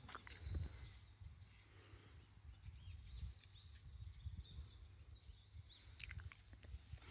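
Faint outdoor ambience: a low rumble of wind on the microphone, with faint bird chirps and a few light clicks near the end.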